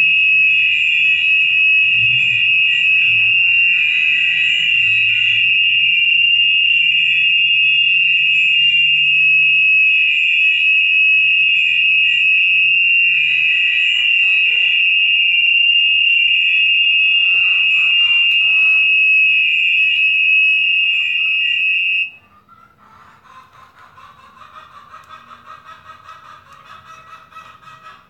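A loud, steady high-pitched tone that cuts off suddenly about 22 seconds in, leaving faint rapid ticking and a softer, lower tone.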